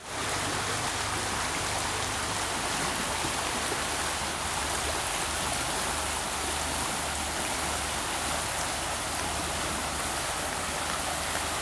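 Small river flowing over rocks: a steady rushing of water.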